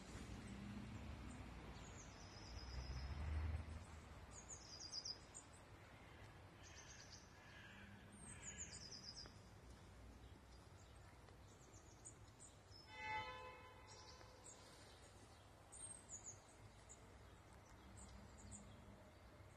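Quiet outdoor ambience with small songbirds giving short, high-pitched, rapid descending chirps several times. A low rumble swells about 3 seconds in, and one short ringing tone sounds about 13 seconds in.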